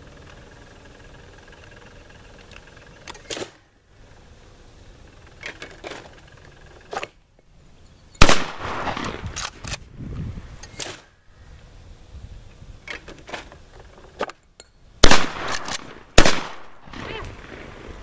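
Three shots from a Benelli Nova 12-gauge pump shotgun: one about eight seconds in, then two more about a second apart near the end, each trailing off in an echo. Quieter clacks and knocks come before and between the shots.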